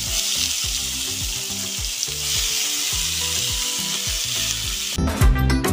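Bottle gourd strips sizzling in hot oil in a wok, a steady hiss. Loud music with a strong beat comes in near the end.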